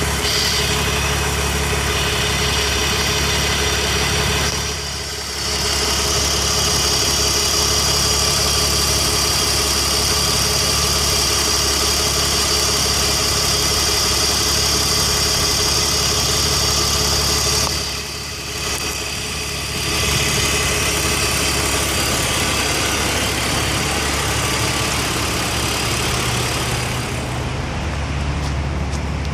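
BMW Z4 E85's straight-six engine idling steadily with a newly fitted DISA intake valve, dipping briefly twice. The owner is checking whether the new valve sounds right.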